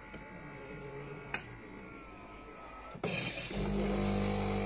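Philips fully automatic coffee machine working while it makes a latte macchiato: a few sharp clicks, then about three and a half seconds in a loud steady buzzing hum starts up, the sound of its pump running.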